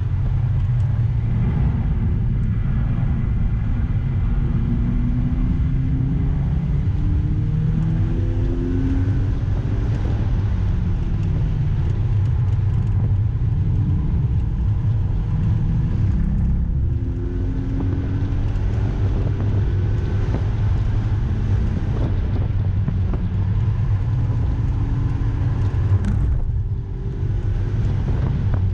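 Mazda MX-5's four-cylinder engine heard from inside the cabin under hard track driving, its note repeatedly climbing in pitch as it revs up through the gears over a heavy road and wind rumble. The level dips briefly twice, about two-thirds of the way in and again near the end.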